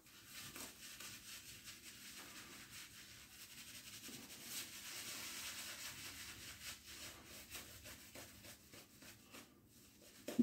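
Shaving brush rubbing and swirling through wet soap lather, building it up after a little more water has been added: a faint, continuous brushy rubbing made of many quick strokes. A short knock comes right at the end.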